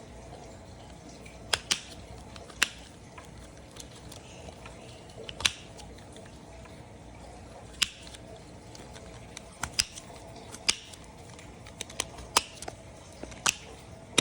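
Sharp plastic clicks and taps from a puzzle toy being worked by hand. About a dozen come at uneven intervals over faint room tone.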